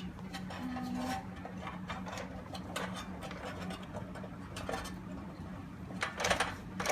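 Handling noise from fitting a door lock's front panel and feeding its wire through the door: scattered clicks and short scrapes, with a louder scraping rustle about six seconds in, over a steady low hum.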